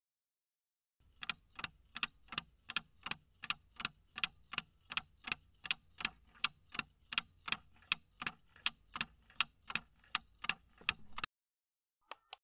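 Clock-ticking sound effect for a quiz countdown timer, about three even ticks a second, stopping suddenly as the time runs out, followed by one brief short sound.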